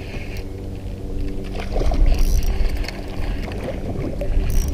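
Steady hum of a small boat's electric trolling motor, with low wind rumble on the microphone. A few light clicks and rattles come about halfway through.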